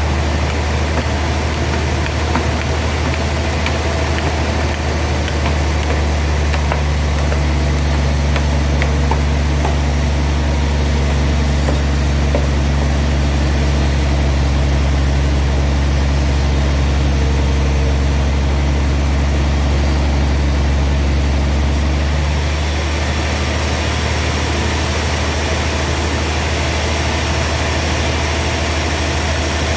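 Sawmill machinery running with a steady, low engine hum; a little past two-thirds of the way through, the hum shifts and turns slightly quieter.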